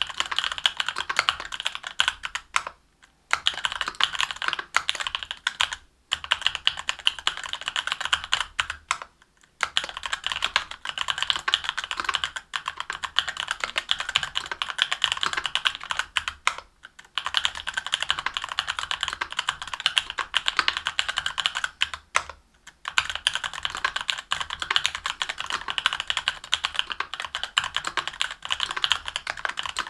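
Continuous fast typing on a mechanical keyboard with stock, unlubed Durock Korbs 62 g linear switches, an aluminium plate and GMK keycaps: rapid clacking keystrokes in long runs, with brief pauses every few seconds.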